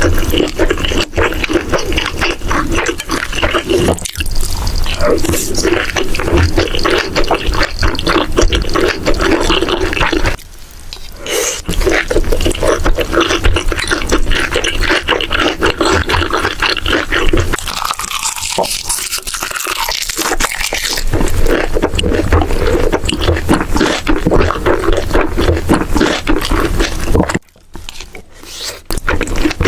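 Close-miked mukbang eating sounds: continuous wet chewing and mouth noises, dense with small crackles, pausing briefly twice.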